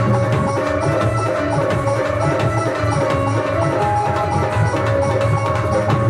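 Live Haryanvi folk instrumental: a dholak drums a steady rhythm under a melody on electronic keyboard and Indian banjo (bulbul tarang).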